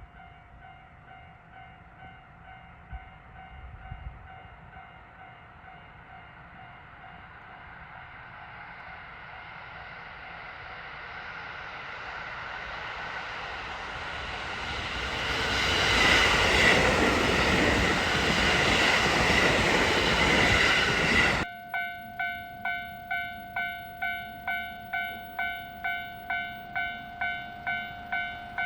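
Japanese level-crossing warning bell ringing while a train approaches and passes, the wheel and running noise rising steadily to its loudest. The train noise cuts off suddenly about two-thirds of the way through, leaving the crossing bell alone, about two strikes a second.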